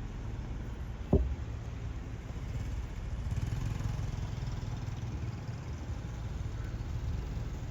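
Street traffic: a motor vehicle's engine running by as a low rumble that grows a little louder in the middle. A single sharp thump about a second in is the loudest sound.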